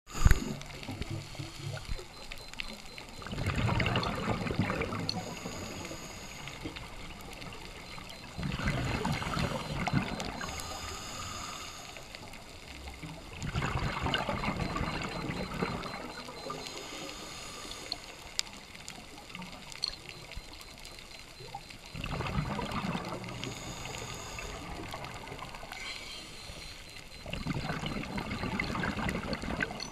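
Scuba diver's exhaled breath bubbling out of the regulator in about five bursts, each about two seconds long and roughly five seconds apart, with a quieter bubbly hiss between them.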